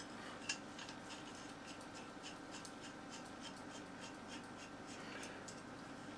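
Faint metal-on-metal ticking and scraping as the threaded end of a steel lathe drawbar is turned by hand into an ER32 collet holder. The ticks come about two or three a second, with one sharper click about half a second in, over a steady faint hum.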